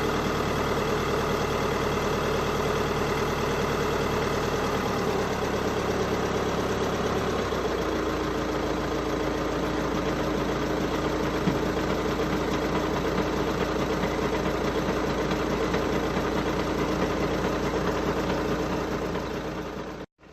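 Volkswagen Passat B7 engine idling cold, with an abnormal noise that shows as a rapid, even ticking over the engine note. The sound changes slightly about eight seconds in and cuts off suddenly near the end.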